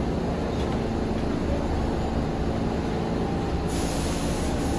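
Subway train standing in the station with its doors open, its equipment humming steadily. A high hiss comes in late in the stretch.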